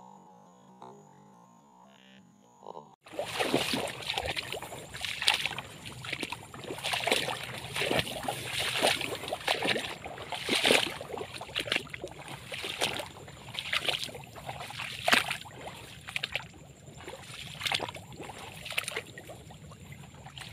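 Faint for about three seconds, then a long run of irregular swishing, sloshing footsteps through wet paddy grass and shallow water.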